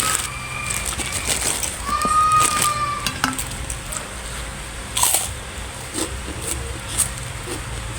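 Eating sounds: scattered clicks and smacks of chewing and of utensils on a plate, roughly one a second. A few short arched pitched calls sound faintly in the background during the first three seconds.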